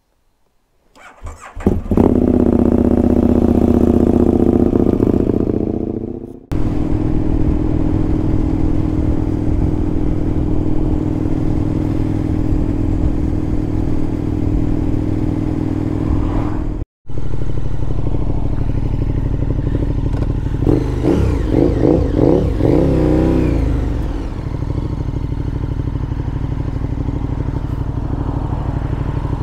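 KTM 1290 Super Duke R's V-twin engine starting about a second in and running, then under way at steady speed with road noise. Revs rise and fall several times about two-thirds of the way through, then settle again.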